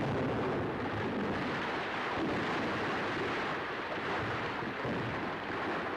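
Steady rushing, rumbling noise on an old newsreel soundtrack, with no single blast standing out.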